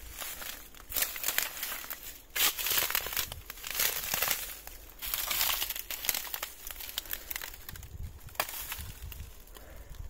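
Footsteps crunching over dry, fallen eucalyptus bark and leaves, in irregular crunches roughly once a second.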